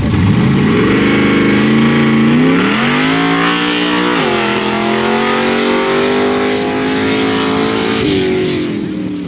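International Scout's engine at full throttle on a sand drag launch. The revs climb hard from the line, drop sharply about four seconds in at a gear change, then climb steadily again. They fall off a second before the end as the driver lifts, and the sound fades with distance.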